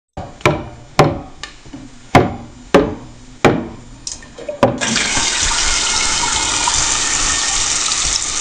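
AI-generated sound effect: six sharp knocks or thumps at an uneven pace, then, about five seconds in, a steady rush like water running from a tap.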